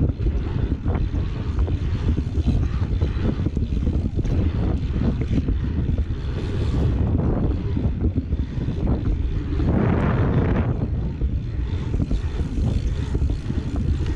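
Wind rumbling on a handlebar-mounted camera's microphone and tyre noise as a bike rolls fast over an asphalt pumptrack, with small clicks and rattles; a louder rush of noise about ten seconds in.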